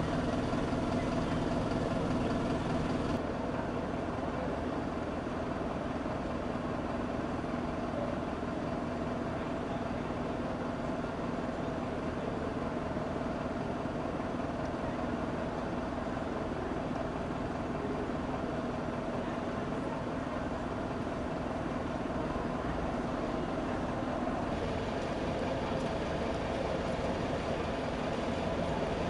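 Steady hum of motor vehicle engines running, with a constant drone and no distinct events.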